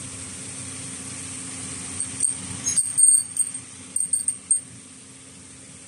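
Butt-welded metal rod rings clinking against each other about a dozen times over two to three seconds in the middle, each clink leaving a short high ring. A steady low machine hum runs underneath.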